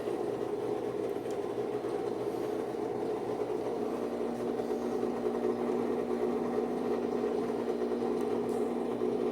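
Brastemp washing machine's motor and drum running with a steady mechanical hum, a further steady tone coming in about four seconds in. The rubbing noise is gone after the drive belt was tightened: the fault was only a slack belt.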